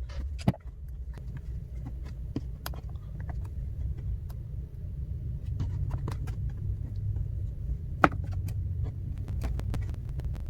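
Scattered light clicks and taps, with a sharper click about half a second in and another about eight seconds in, from handling the reassembled iPad and tools on the work surface. A steady low hum runs underneath.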